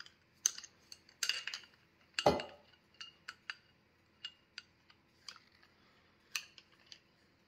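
Adjustable wrench clicking and clinking against brass pipe fittings as a threaded nipple is tightened into a ball valve, in a string of separate metal clinks with a heavier knock about two seconds in.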